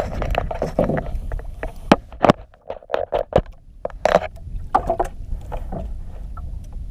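Irregular close knocks, taps and rubbing as the action camera and its mount on a small outrigger boat are handled, over a low steady rumble of water and wind.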